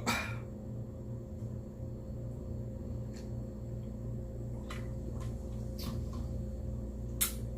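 Steady low background hum with a few faint, scattered clicks and one sharper click near the end.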